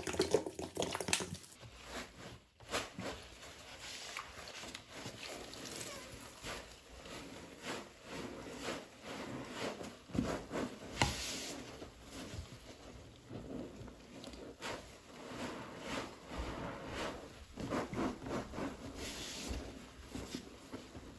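Liquid pouring onto a sponge for the first second or so, then a soaked, sudsy sponge squeezed by hand over and over, giving repeated wet squishes with dripping liquid.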